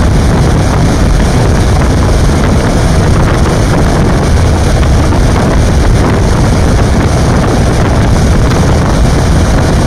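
Loud, steady wind buffeting the microphone through an open vehicle window while driving, heaviest in a deep rumble.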